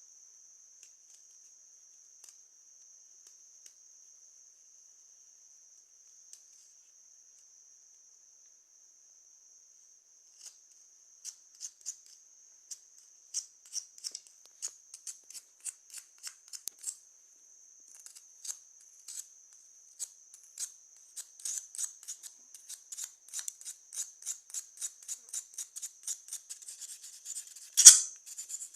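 Cuttlebone being scraped into powder with repeated rasping strokes, about two to three a second. The strokes start about ten seconds in and grow more frequent, with one much louder scrape near the end, over a faint steady high whine.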